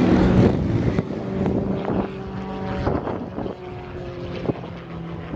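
Extra 330L aerobatic plane's six-cylinder Lycoming engine and propeller droning steadily in flight, loudest in the first second and then fading as the plane draws away.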